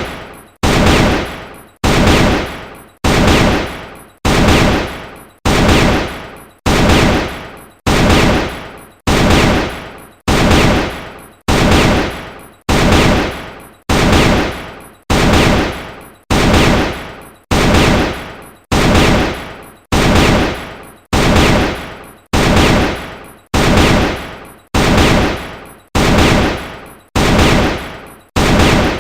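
AK-47 rifle gunshot sound effect: single sharp shots, each with a ringing tail that dies away, repeated evenly about every 1.3 seconds.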